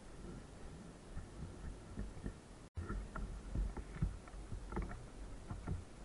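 Body-worn action camera jostled by a person's steps: dull, irregular low thumps and clothing rustling against the microphone, broken by a brief dropout a little under three seconds in.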